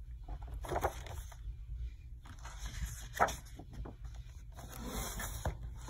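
Pages of a graphic novel being turned by hand: several short paper swishes and rustles over a steady low hum.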